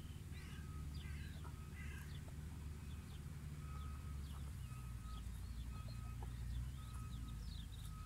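Wild birds chirping and singing, with many short rising and falling calls and a repeated thin whistled note, over a faint low steady rumble.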